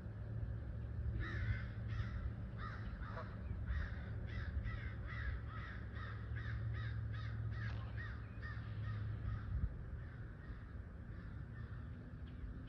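A bird calling in a long run of short, repeated calls, about two or three a second, starting about a second in and fading out near ten seconds, over a steady low hum.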